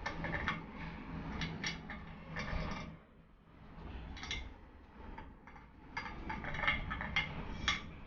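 Caster wheels being pushed and fitted into a gaming chair's five-point star base: bursts of clicks and knocks, with a short lull partway through.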